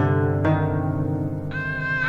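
Background music of plucked string notes over a low held bass, with a sustained higher note coming in about one and a half seconds in.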